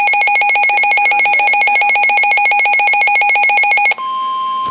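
Weather radio alert: a loud, fast two-tone warble that switches abruptly about four seconds in to a single steady tone near 1 kHz. The steady tone is the 1050 Hz warning alarm tone that comes before a NOAA Weather Radio warning message.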